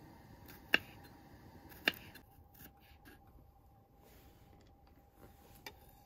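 Folding pocket knife slicing a garlic clove on a wooden cutting board: two sharp taps of the blade meeting the board, about a second apart, and a lighter tap near the end.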